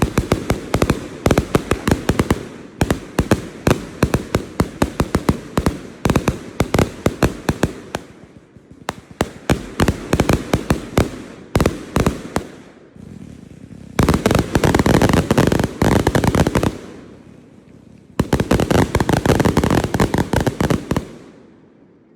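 Fireworks going off in a dense, rapid barrage: many overlapping sharp bangs in volleys, building to two stretches of almost continuous crackling reports in the second half, then stopping shortly before the end.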